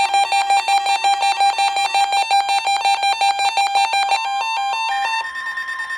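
Weather radio alert alarm: rapid electronic beeping at about five beeps a second, then, about five seconds in, the beeping gives way to a steady alert tone.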